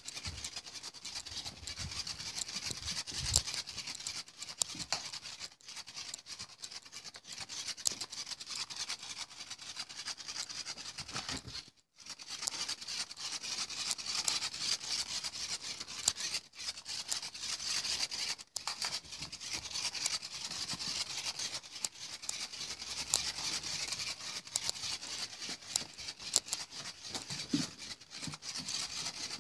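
Continuous scratchy rustling and crackling as a cat paws at and chases a toy bat on fabric and a wooden floor. The sound breaks off briefly a few times, most clearly about twelve seconds in.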